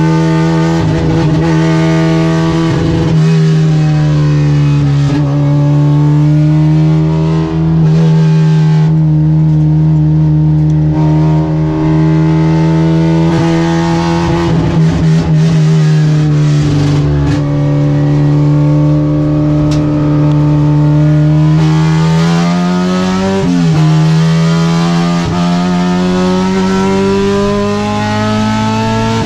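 K24-swapped Acura Integra's four-cylinder engine running hard at high revs, heard from inside the cabin. Its pitch stays fairly level with a few brief dips and rises, then climbs steadily over the last few seconds as the car accelerates down a straight.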